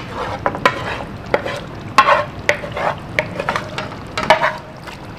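Wooden spatula scraping and knocking against a non-stick frying pan as thick fried spinach is pushed out of it into a pot of mutton gravy. The knocks and scrapes come irregularly, several to the second.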